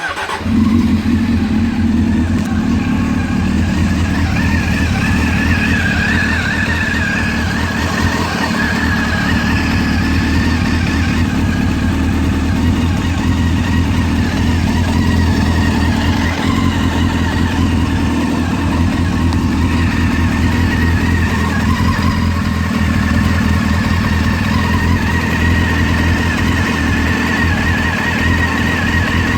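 2001 Honda CBR600 F4i's inline-four engine starting right at the beginning, then idling steadily. The owner hears clicking noises as it starts up and does not know their cause.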